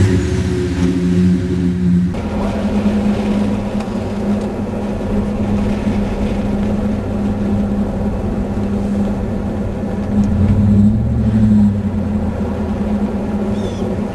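Car engine running as the car drives, with a steady hum that swells briefly about ten seconds in.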